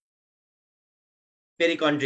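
Dead silence, then a man's voice begins speaking about one and a half seconds in.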